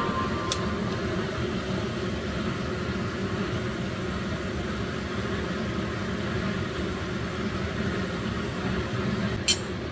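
Steady low machine hum, like a small motor or fan running. There is a faint click about half a second in and a sharper click near the end.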